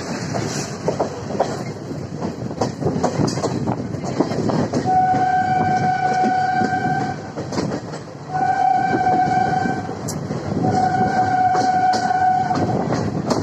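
Indian Railways train horn sounding three long, steady blasts, heard from a moving passenger coach over the wheels clattering and rumbling on the rails.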